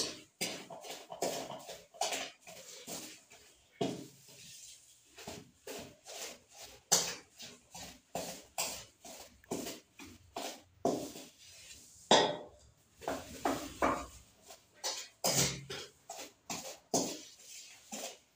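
Wooden cooking stick creaming margarine and sugar in a stainless steel bowl. It scrapes and knocks against the metal in quick, irregular strokes, several a second.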